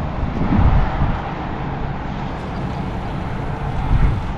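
Steady low outdoor rumble with irregular low swells, with no clear single source.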